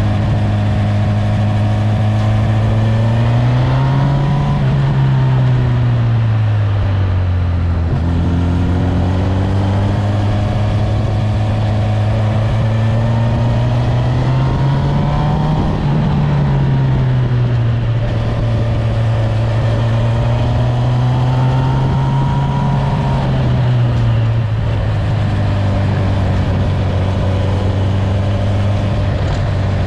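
Honda CB1000R inline-four running through a G&G aftermarket exhaust with the baffle fitted, at a steady engine speed while riding. Its note rises and eases back three times, about four, fifteen and twenty-two seconds in.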